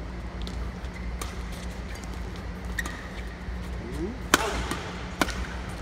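Badminton rackets striking a shuttlecock: a sharp smack about four seconds in (the serve) and a second one less than a second later. Lighter clicks and a brief shoe squeak on the court floor come before them, over the hall's steady low hum.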